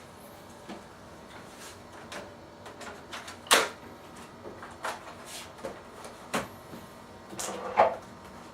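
A few sharp plastic clicks and knocks, the loudest about three and a half seconds in and another pair near the end, as a laptop battery is pushed into its bay and latched and the laptop is handled.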